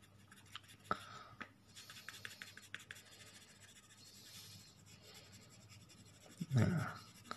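Faint scratching of a 2B graphite pencil on paper, in quick shading strokes with a few sharper ticks. A brief voice sound near the end.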